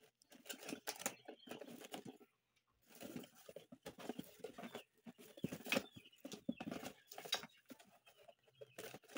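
Cardboard box and packing being handled and rustled while a power tool is unpacked: irregular scraping and crinkling in several spells, with short pauses.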